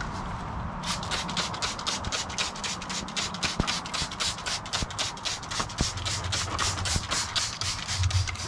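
Hand trigger spray bottle squirting liquid rigidizer onto a ceramic fibre forge blanket, pumped rapidly at about four or five hissy squirts a second, starting about a second in.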